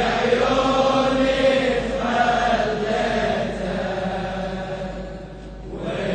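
Men's voices chanting a slow Shia mourning refrain (latmiyya) in unison, in long drawn-out sung phrases. There is a short lull about five seconds in before the next phrase begins.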